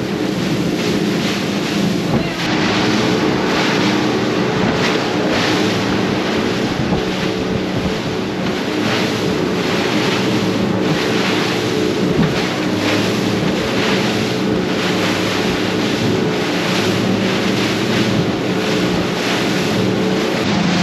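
A 30-foot Sea Hunt center-console boat's outboard engines running steadily at cruising speed, with water rushing along the hull in regular surges and wind buffeting the microphone.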